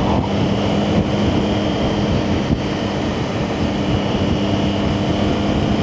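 Motorcycle engine running at a steady cruise, its hum holding an even pitch, under heavy wind and road noise on the bike-mounted microphone.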